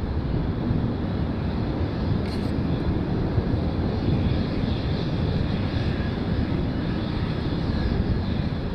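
Steady drone of airplane engines in flight, heard against a low rumble of wind on the microphone.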